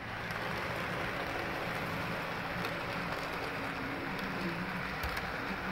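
HO-scale model diesel train running along the layout track: a steady hiss-like running noise with a low drone that shifts in pitch now and then, and a few faint light clicks.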